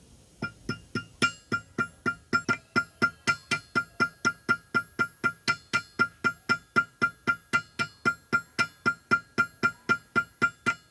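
Small hammer tapping a pin through a brass sword hilt on an anvil, peening its end over to rivet the grip: quick, even strikes about four a second, each with a bright metallic ring. The tapping starts about half a second in.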